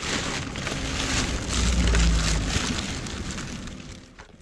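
Plastic bin bags rustling and crinkling as hands pull them apart to dig through the rubbish, with a deep rumble about halfway through.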